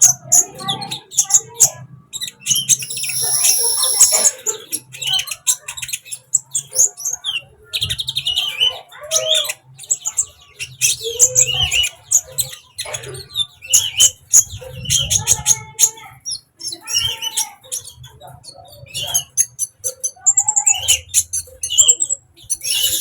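Caged sunbird (kolibri) singing hard: a rapid, continuous run of high chirps, twitters and short trills with few pauses.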